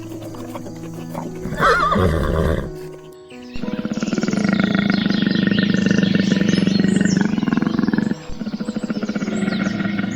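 Animal calls over soft background music: a short wavering call about two seconds in, then a long, loud call lasting several seconds, broken briefly near the end.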